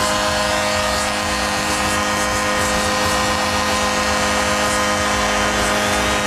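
Arena crowd cheering a home goal, a steady wash of noise with a constant hum of steady tones under it.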